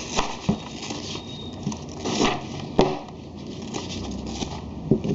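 Handling of velcro sticky balls and a target vest: rustling and scraping with a few sharp knocks, the sharpest a little under three seconds in.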